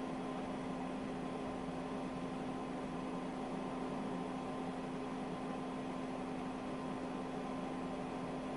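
A steady low hum with a fainter higher tone over an even hiss, unchanging throughout, with no dolphin clicks or whistles and no splashing.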